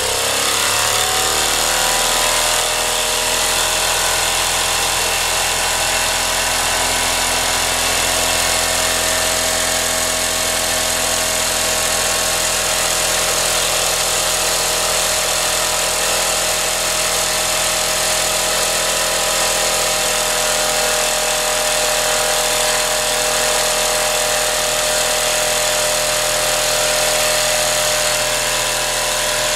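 Wilesco D457 gas-fired model steam engine running fast under a good head of steam: a steady whir and hiss with several constant whining tones.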